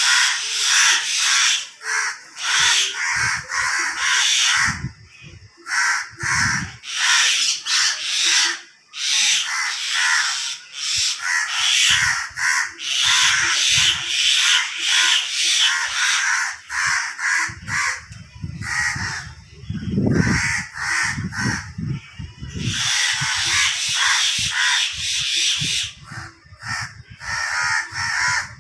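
Crows cawing over and over, harsh calls following closely one after another.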